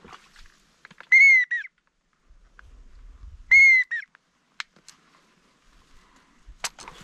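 Two loud whistled duck calls about two and a half seconds apart, each one short note that rises and falls. A faint sharp click comes near the end.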